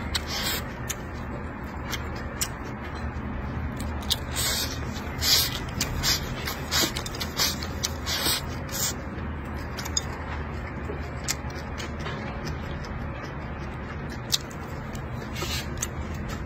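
Close-miked eating: chopsticks shovelling rice and braised pork belly from a plate into the mouth, with chewing, small clicks and a run of short, hissy slurps that bunch together in the middle. A steady low hum sits underneath.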